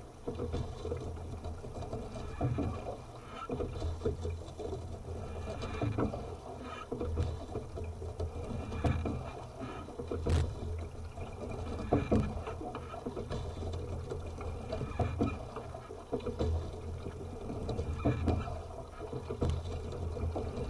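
Single sculling boat being rowed: a knock from the oars and rigging at each stroke, about every two to three seconds, over a steady low rumble and water along the hull.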